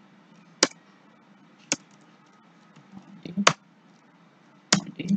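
Laptop keyboard keystrokes: a few sharp, separate key clicks about a second apart over a faint steady hum.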